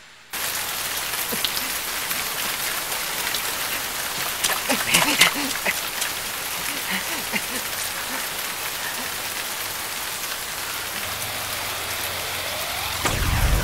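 Heavy rain falling steadily, cutting in abruptly at the start, with a few louder spatters about five seconds in. A low rumble builds near the end.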